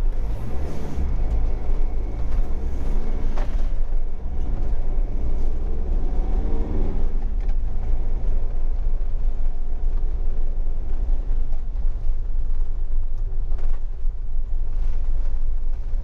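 Motorhome driving along a wet road, heard from inside the cab: a steady low rumble of engine and road noise.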